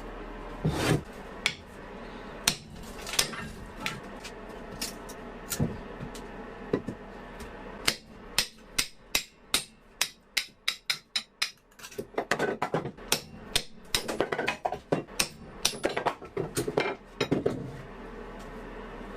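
Hammer tapping on metal: scattered single blows at first, then a quick even run of about three to four strikes a second, then a denser spell of blows that stops near the end.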